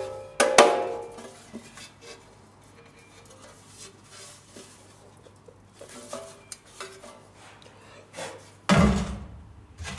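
Galvanised sheet-metal toolbox and steel hand tools being handled: clanks and rattles with a short metallic ring, loudest about half a second in, then light knocks and clinks, and a heavier knock near the end.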